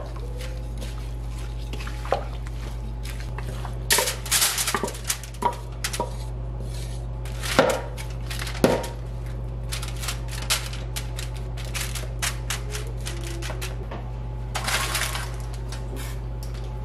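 Wooden spoon clinking and scraping as seasoned shrimp and sliced peppers are tipped from a ceramic bowl and spread across a foil-lined sheet pan, with scattered clicks, a couple of louder knocks around the middle, and a steady low hum underneath.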